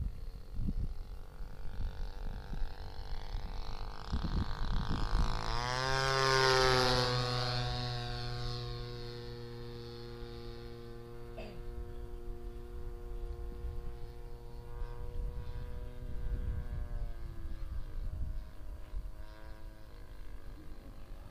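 Engine and propeller of a radio-controlled scale model Meta Sokol making a pass overhead. The note swells, drops sharply in pitch as the plane goes by about six seconds in, then holds steady as it flies away.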